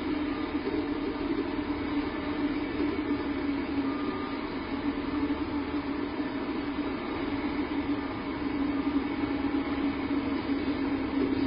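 Steady rushing background noise with a low hum running through it, with no bird calls or distinct events.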